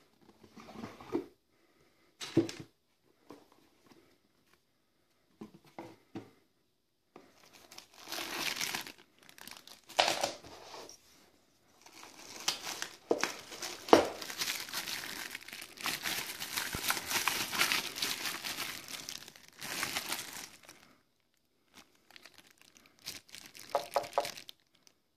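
Plastic packaging bag crinkling as a bagged power adapter and cables are handled and lifted out of a cardboard box, after a few short knocks and scrapes of the box being opened. The crinkling is nearly continuous through the middle stretch and comes once more briefly near the end.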